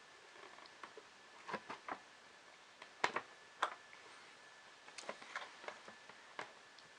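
Irregular light clicks and taps of small 3D-printer parts being handled and fitted by hand, a cluster of sharper knocks about halfway through, over a faint steady high tone.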